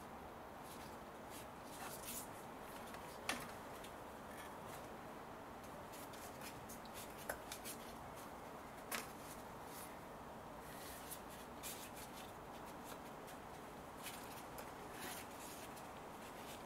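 Faint rubbing and scattered light clicks as gloved hands feed a new rubber multi-rib serpentine belt around the engine's pulleys, with a sharper click about three seconds in.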